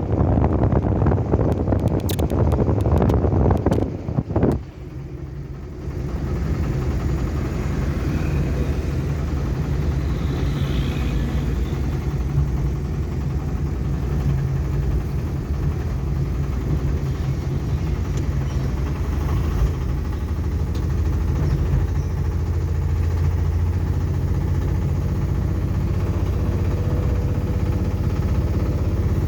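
Wind buffeting the microphone for the first few seconds, then a vehicle running with a steady low rumble.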